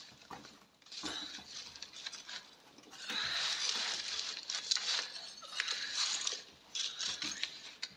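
Scratching and scraping from behind a wall, coming in uneven bursts with quieter gaps between them.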